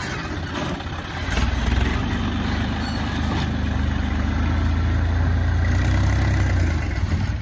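John Deere loader tractor's diesel engine running. It grows louder about a second and a half in, then holds a steady deep rumble that eases slightly near the end.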